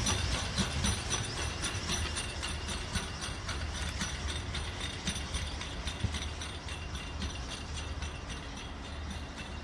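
Steam-hauled train behind RPSI No.4, a 2-6-4 tank locomotive, moving away over the tracks and points: a quick, even run of clicking and clatter over a low rumble, growing fainter as it recedes.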